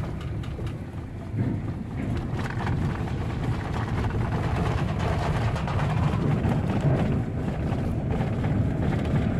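Jeep driving over a rough surface, heard from inside: a steady low rumble of engine and tyres with faint irregular knocks and rattles.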